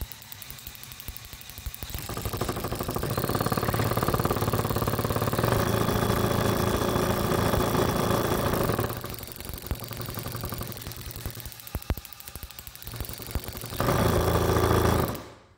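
Battery-powered drill spinning an aircraft magneto with no impulse coupling: it runs slowly at first, speeds up after about two seconds, drops back in the middle, speeds up again briefly near the end, then stops. A fast ticking runs under the motor sound as the sparks jump the test rig's gaps.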